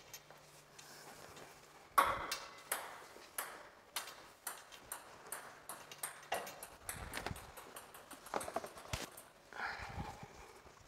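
Broom sweeping a hard floor, with boot footsteps and handled inflated rubber balloons being carried and set down. The sound is a string of short knocks and taps, the loudest a sharp knock about two seconds in.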